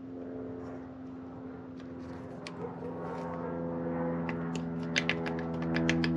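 Soft held background-music tones. From about four seconds in, a ratcheting hand tool turning on the engine's cylinder head makes a quick, regular run of clicks, about four a second.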